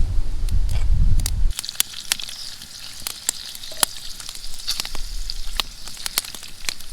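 Bacon frying in a pan over a campfire: a steady sizzle with many sharp pops and crackles. For about the first second and a half, wind rumbles on the microphone, then drops away abruptly.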